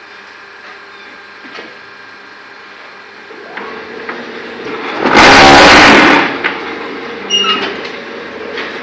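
Concrete block making machine running: a steady hum from its electric motor and hydraulics, building up from about three seconds in to a loud, harsh burst of noise that lasts just over a second, then a few short clanks.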